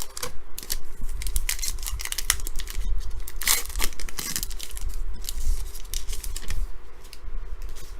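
Wrapper of a football trading card pack being torn open and crinkled, with short rustles and clicks from handling; the longest, loudest tear comes about three and a half seconds in.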